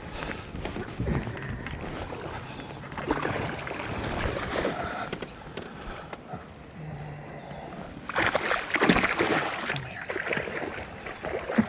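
Water splashing and sloshing against a fishing boat, in two noisy surges about three and eight seconds in, the second one louder.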